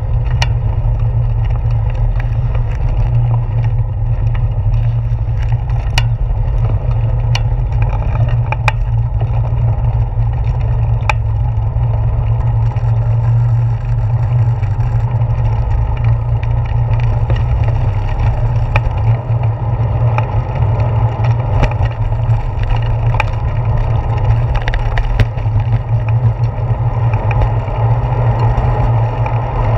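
Bicycle ride heard through a handlebar-mounted camera: a loud, steady low rumble of vibration and wind, with scattered sharp clicks and knocks as the tyres cross the planks of a wooden boardwalk, most of them in the first dozen seconds.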